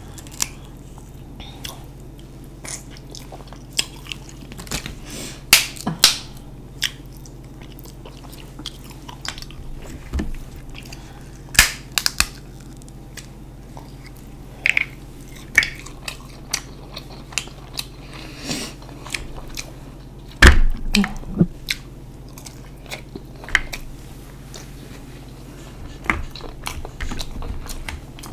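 Close-miked eating of boiled shellfish: crab-leg and shell pieces cracking and snapping as they are pulled apart by hand, with chewing and sucking of the meat. The sharp cracks come at irregular intervals, the loudest about two-thirds of the way through.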